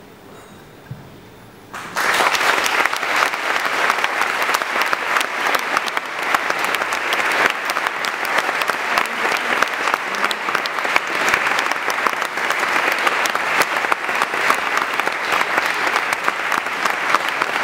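Audience applause breaking out about two seconds in and keeping up at a steady level: dense clapping from many hands.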